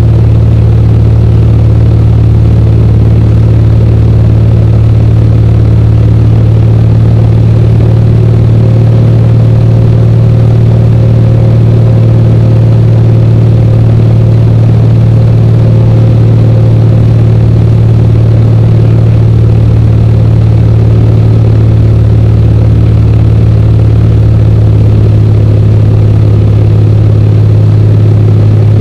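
Single-engine piston aircraft's engine and propeller running steadily in cruise flight: a loud, even drone with a strong low hum.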